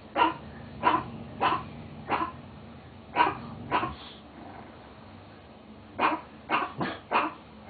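Short, sharp woof-like barks in runs: four evenly spaced about half a second apart at the start, a pair a little past the middle, and a quicker run of four near the end.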